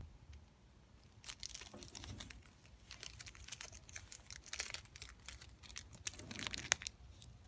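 Bag of catnip crinkling and crackling in irregular bursts as a cat paws and bites at it.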